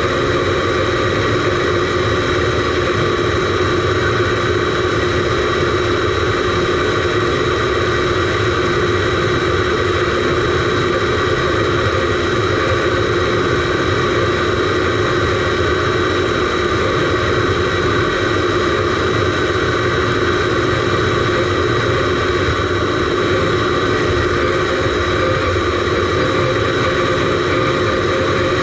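Radio-controlled Mercedes Actros SLT model truck running, heard from inside its cab: a steady, unchanging engine-like hum with several constant tones.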